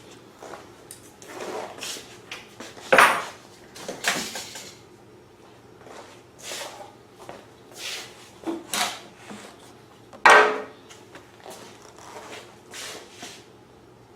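Pliers and a small hose clamp being worked on a rubber breather hose: scattered clicks, taps and clunks of metal tools and parts being handled, the loudest about three seconds in and again about ten seconds in.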